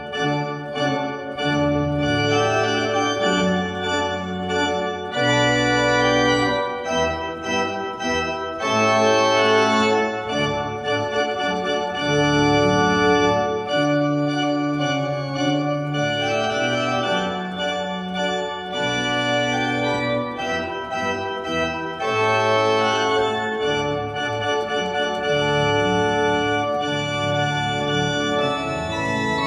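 Organ music: slow, sustained chords that change every second or two over a stepping bass line.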